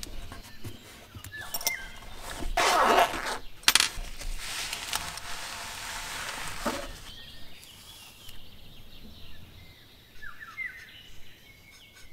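Handling sounds of art supplies on a table: rustling and scraping with scattered clicks as a cloth roll of paintbrushes is handled and brushes are picked out. The loudest part is a rasping rustle about two and a half seconds in, then a longer rustle from about four to seven seconds.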